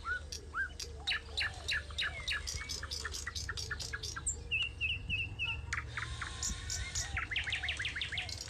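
Songbirds chirping: rapid series of short, sharp chirps with a brief warbling trill about halfway through, over a steady low rumble.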